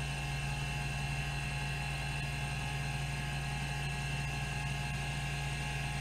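Rodime RO252 hard disk drive running with its platters spinning at speed: an even hum with a steady high whine, and no seek clicks from the head stepper.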